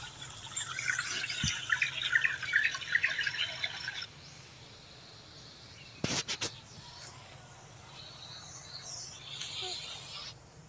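Birds chirping in a busy, rapid chatter that stops abruptly about four seconds in, leaving a quieter outdoor background with a short cluster of clicks about six seconds in.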